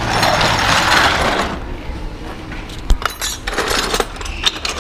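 A hissing rush for the first second and a half, then metal hand tools clinking and clicking in scattered bursts against the motorcycle's metal parts, with ratchet-like clicks and one sharp clink a little under three seconds in.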